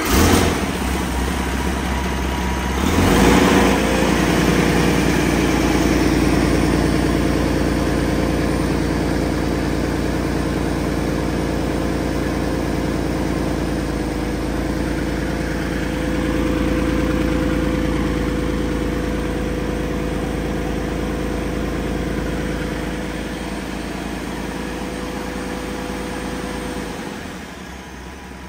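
PACCAR MX-13 inline-six diesel engine running on a test stand at a steady idle, with a brief louder burst about three seconds in. Its steady note stops shortly before the end.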